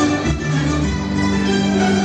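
Filipino folk-dance music with plucked strings and a steady bass line.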